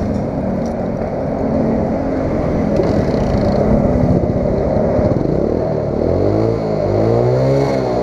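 Underbone motorcycle engine running at its muffler outlet, blipped near the end so the exhaust note rises and falls. The muffler has just been repacked with new fibre, and the exhaust is much quieter, close to a stock pipe.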